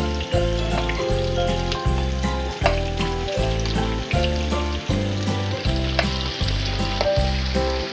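Sliced onions sizzling and crackling in hot oil as they are tipped into the pan, under background music with a steady beat of low notes changing about twice a second.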